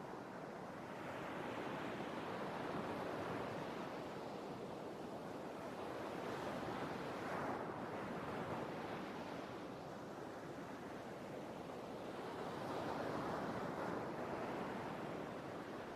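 Sea waves rolling in and washing back, the surf swelling and fading three times.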